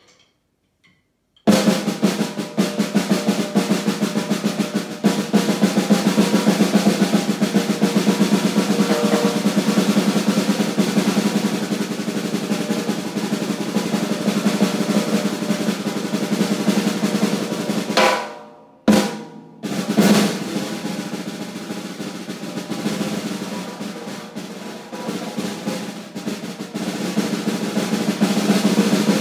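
Snare drum played in a fast, continuous roll. It starts about a second and a half in and breaks off briefly about two-thirds through before going on.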